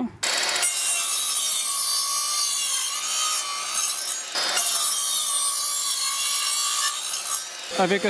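Evolution cordless sliding mitre saw running and cutting through a square wooden post, with no vacuum connected to its dust port. The sound starts about a quarter second in and eases off near the end.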